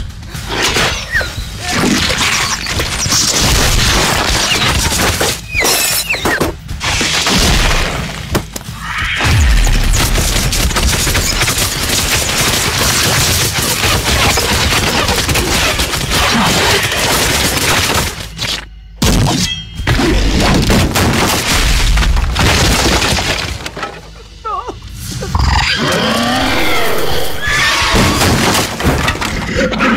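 Film soundtrack of loud crashing and breaking sound effects over music, with deep booming hits and a few abrupt cuts. A voice is heard near the end.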